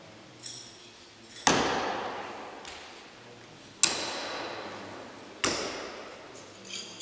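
Steel throwing knives striking wooden target blocks three times, each a sharp hit with a long echo, the middle one the loudest. Light ringing metallic pings come shortly before the first hit and near the end.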